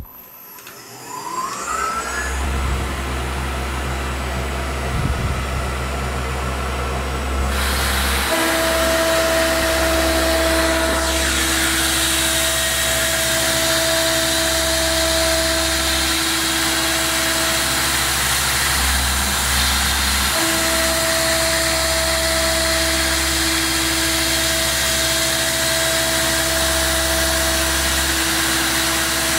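Tormach PCNC 1100 milling machine working in steel: the spindle spins up with a rising whine, then the mist-coolant nozzles start a steady hiss and a small coated end mill cuts in the bored hole with a steady two-note tone. The tone breaks off for a couple of seconds partway through, then resumes.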